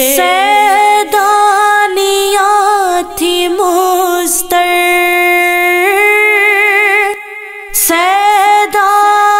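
Woman singing a Muharram noha (lament), drawing out long wavering notes with no clear words between lines, with a brief pause for breath about seven seconds in.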